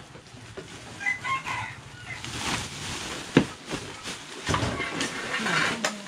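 Plastic bags and bundled cloth rustling and crumpling as rubbish is gathered by hand, with a sharp knock about three and a half seconds in. A short, broken animal call sounds about a second in.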